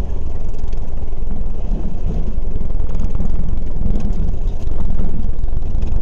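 Bus engine and road noise heard from inside the passenger cabin while the bus is moving: a steady low rumble.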